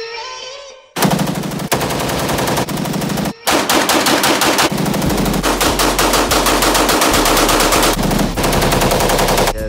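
Pistol fire in an indoor shooting range: shots crack in quick succession, starting suddenly about a second in, with a brief break a little after three seconds.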